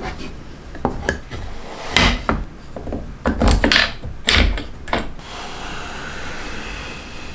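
Plywood pieces of a shop-made angle jig knocked and slid together on a cutting mat, with a plastic star knob fitted and turned down: a quick run of sharp wooden clicks and knocks, then a steadier quiet rubbing for the last couple of seconds.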